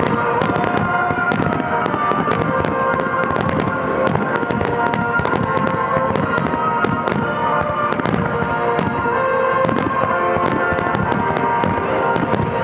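Aerial firework shells bursting in a dense barrage, several sharp bangs a second, over the music played for the show.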